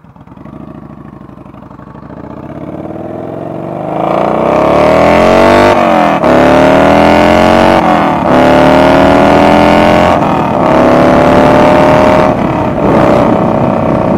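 Yamaha Bolt's V-twin engine through a homemade slip-on exhaust with a single bolt-in baffle, accelerating hard: the engine note builds over the first few seconds, then climbs in pitch and drops back at each of four upshifts, about every two seconds. Extremely loud under the heavy throttle.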